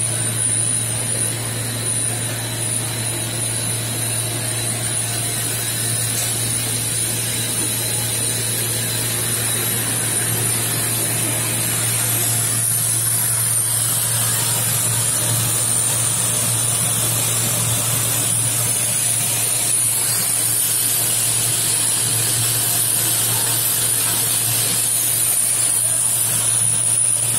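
Polypropylene melt-blown fabric line running: a steady machine hum with a high, thin whine, under a rushing hiss of hot air blowing fibres from the die onto the collector belt. The hiss grows louder about halfway through.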